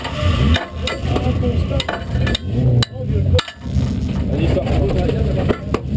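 Race car engine idling unevenly, heard from inside the stripped, roll-caged cabin, with scattered clicks and rattles.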